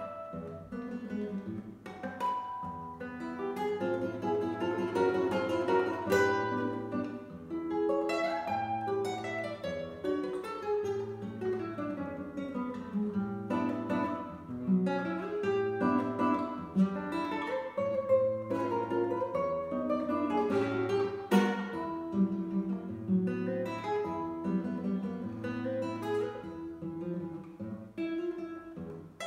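Solo nylon-string classical guitar, fingerpicked: quick falling runs of notes over a recurring low bass note, with a couple of loud chords struck across all the strings.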